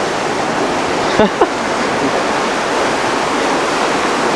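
Steady rush of surf washing over a rocky shore, with a short voice sound about a second in.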